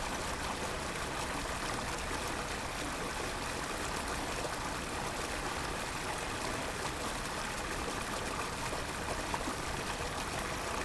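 A small stream spilling over a little waterfall, a steady rush and trickle of running water, recorded in stereo on a handheld recorder's built-in mics.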